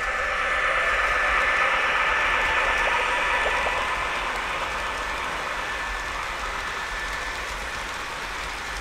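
O scale model train running on three-rail track: the wheels rolling with a steady mechanical rattle and a faint motor whine. It is loudest in the first couple of seconds, then slowly fades as the train moves away.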